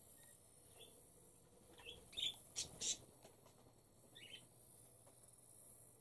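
Small pet parrots, budgerigars and cockatiels, chirping: a quick run of short sharp calls about two to three seconds in, the loudest two at the end of that run, then a few fainter chirps about a second later.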